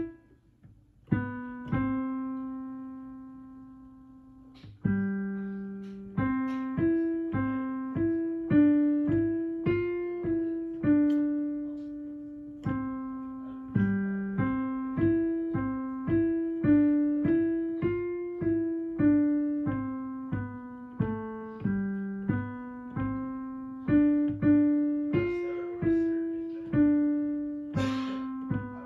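Piano playing a slow, simple melody one note at a time, each note struck and left to ring and fade before the next.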